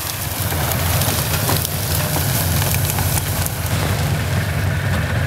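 Chevrolet Trailblazer's engine running as the SUV ploughs through deep snow and brush, a steady low drone under an even crackling hiss.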